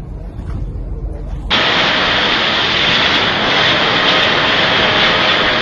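Wind buffeting the microphone with a low rumble. About a second and a half in, it cuts to a loud, steady roar of blizzard wind.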